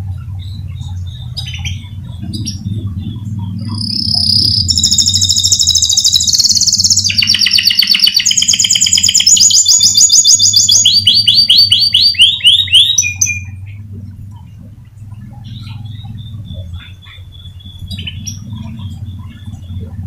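Domestic canary singing a long song of fast rolling trills, several runs of rapid repeated notes each held at its own pitch, from about four seconds in until about thirteen seconds, over a steady low hum.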